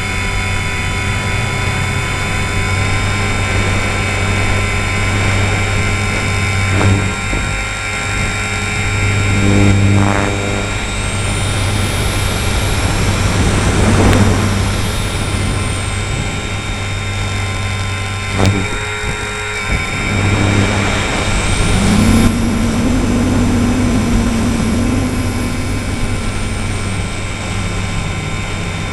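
Align T-Rex 450 Sport electric RC helicopter in flight: the motor and gear whine and the rotor hum, heard up close, with a high whine that glides up and down in pitch twice.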